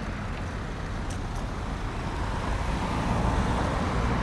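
Road traffic running steadily, with a vehicle's engine and tyre noise growing louder from about halfway as it passes close.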